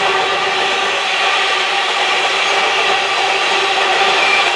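Empty steel ore wagons rolling past on the rails: a steady grating noise of wheels on rail, with several held ringing tones over it and no regular clickety-clack beats.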